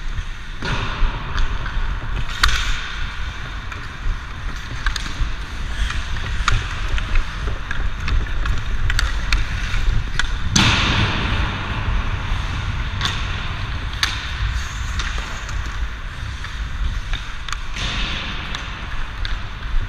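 Hockey skate blades carving and scraping across the ice, with hockey sticks clicking against the ice and puck now and then, and a louder scrape about ten and a half seconds in. A steady low rumble of wind and movement sits on the helmet camera's microphone.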